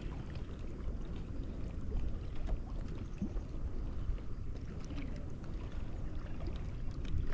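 Steady low rumbling outdoor noise with a few faint scattered clicks and taps.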